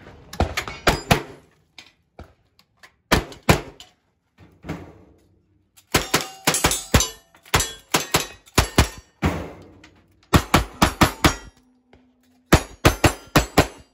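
Strings of rapid gunshots from cowboy action firearms: a long gun fired in quick succession, then single-action revolvers about ten seconds in, with hits clanging on steel targets. The shots come in tight bursts of several a second, separated by short pauses for gun changes.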